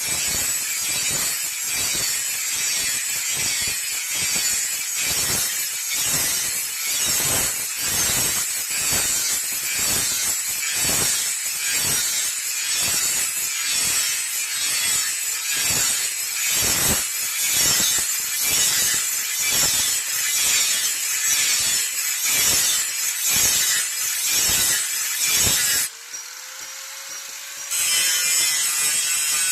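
Hand file rasping on a forged steel blade: repeated back-and-forth strokes about two a second, with a brief break near the end.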